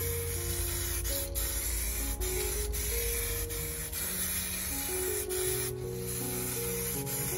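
Aerosol spray paint can hissing as paint is sprayed over a stencil, with a short break about three-quarters of the way through. Background music plays under it.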